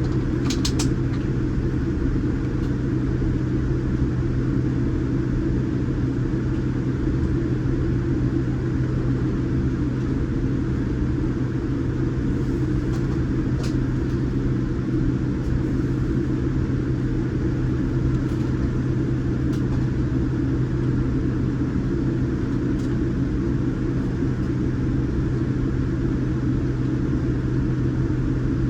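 Steady low hum and rumble inside the cabin of a Boeing 787 Dreamliner on the ground before takeoff: engines and air conditioning running with an even, unchanging drone. A few faint clicks sound about half a second in and again around the middle.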